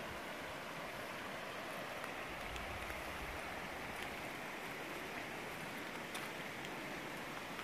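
Shallow river running steadily over rocks, an even rushing of water with a few faint ticks.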